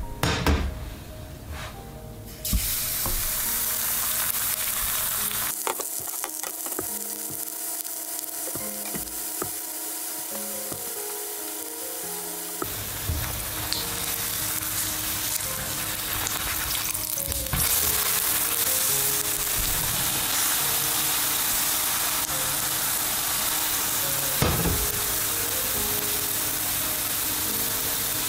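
Egg, flour and milk pancake batter frying in hot oil in a nonstick pan: a steady sizzle that starts abruptly a couple of seconds in and grows louder about two-thirds of the way through, with a few light knocks.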